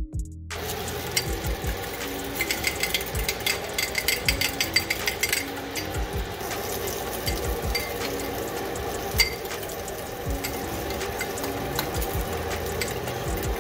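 Breakfast sausages frying in a pan, sizzling and crackling steadily from about half a second in, with a flurry of sharper pops a few seconds in. Near the end a fork clinks as it beats a raw egg in a glass bowl.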